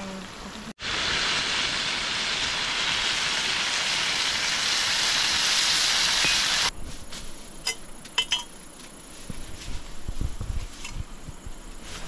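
Food sizzling loudly in hot oil in a pot as vegetables are stir-fried, a steady hiss that stops abruptly after about six seconds. Then a quieter stretch with a few clinks of a utensil against the pot.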